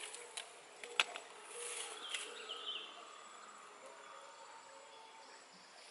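A couple of sharp taps and a short scraping from a knife being worked by hand, then a quiet outdoor background.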